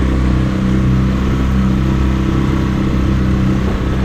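Dinghy outboard motor running steadily at a constant speed.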